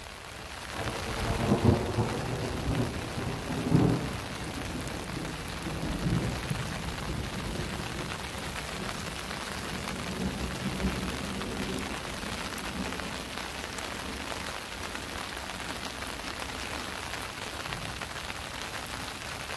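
Steady rain falling on a lake and its shore, an even hiss throughout. A few louder low rumbles swell up in the first four seconds.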